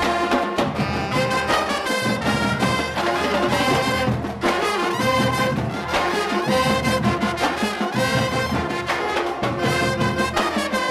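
Upbeat brass band music led by trombones, playing with a steady beat.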